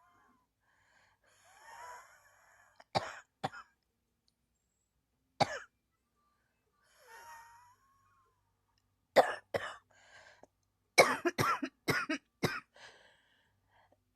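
A person coughing in bouts: two sharp coughs about three seconds in, a single one a couple of seconds later, then a pair and a quick run of about five coughs near the end, with faint breaths drawn in between.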